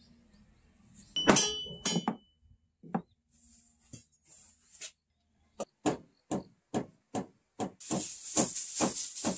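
Wooden mallet knocking on pine floorboards: a couple of loud ringing strikes just after a second in, a few scattered taps, then a steady run of about two taps a second. Near the end, a gloved hand rubs quickly back and forth across the boards with a scratchy sound.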